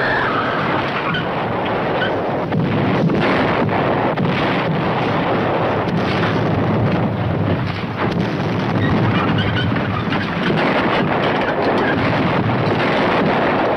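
Steady, loud rumbling noise with faint scattered cracks through it.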